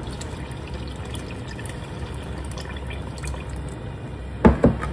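Water pouring from a jug into a stainless steel pot of curry, a steady splashing, with two sharp knocks near the end.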